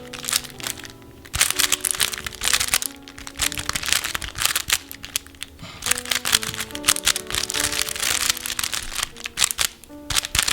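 Plastic speed cube turned rapidly during a speedsolve, a fast run of clicking and clacking that breaks off briefly a few times, over background music with a simple melody.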